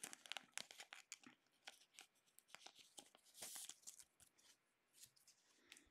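Faint crinkling and rustling of a thin plastic card sleeve as a trading card is slid into it, with light clicks of card handling and a slightly longer rustle about three and a half seconds in.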